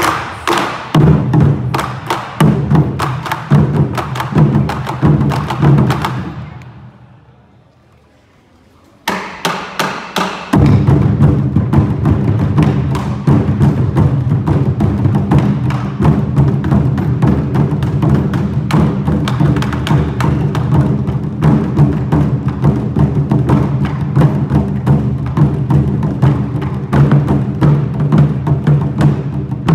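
Taiko ensemble of chu-daiko barrel drums struck with bachi sticks in a fast, driving rhythm. About six seconds in, the drumming stops and dies away to a short hush, then a few sharp, light strikes come in before the full ensemble resumes at about ten seconds.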